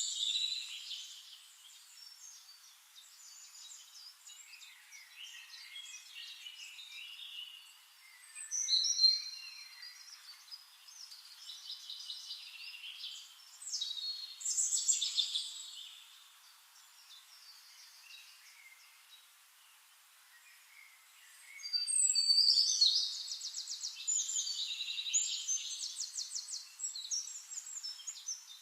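Songbirds singing in separate bursts of chirps and fast trills, with the longest and loudest phrase about three-quarters of the way through.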